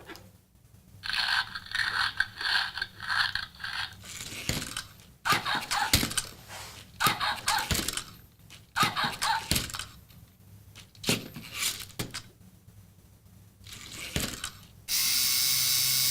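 LEGO Mindstorms EV3 robot dog's motors whirring and clicking through plastic gears in a series of short bursts. Near the end there is a steady loud hiss lasting about a second.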